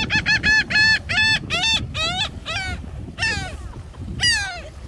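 Laughing gull calling: a fast run of short, arched notes, about four a second, that slows into a few longer, falling notes further apart.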